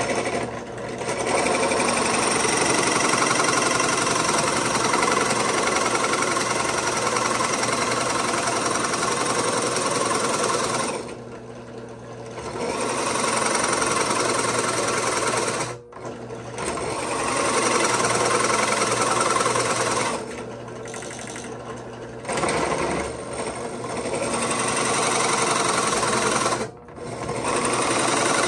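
Benchtop drill press running and boring a 2 1/8 inch Forstner bit through dense red oak hardwood, a steady loud cutting noise that drops off briefly several times. The large bit is a little harder to get through the oak and takes quite a bit of horsepower to spin.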